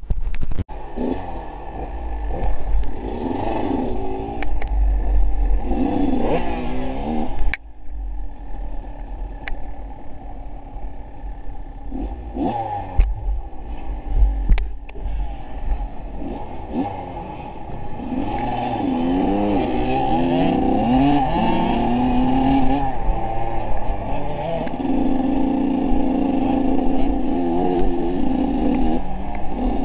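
A vehicle engine revving up and down again and again, its pitch rising and falling, with a few sharp knocks along the way.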